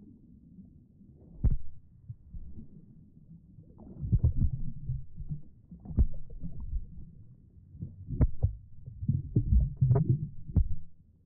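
Muffled splashing and sloshing of pool water from a child's swimming strokes, heard through a camera held at the waterline, partly underwater, with a few sharp thuds among the sloshing.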